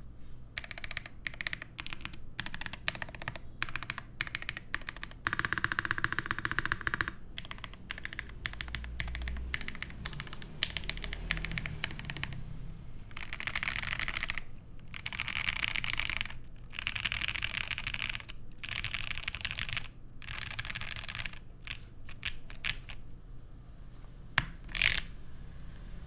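Typing on a Mode Sonnet mechanical keyboard with lubed Prevail Epsilon switches on an aluminium plate and GMK keycaps. The keystrokes come in bursts with short pauses between them, and there are two louder single strokes near the end.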